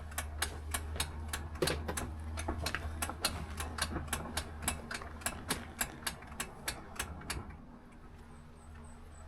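A ratchet wrench clicking steadily, about three clicks a second, as bolts on the awning brackets are tightened, stopping about seven seconds in. A low steady hum runs under the clicking and stops with it.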